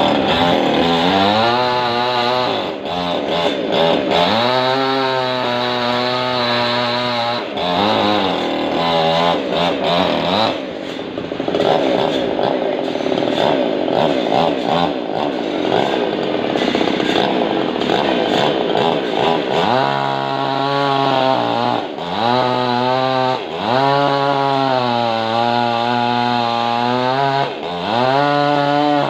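Two-stroke chainsaw ripping lengthwise through a large log, running loud throughout, its engine pitch rising and falling again and again as the bar is worked through the cut, with a steadier, rougher stretch in the middle.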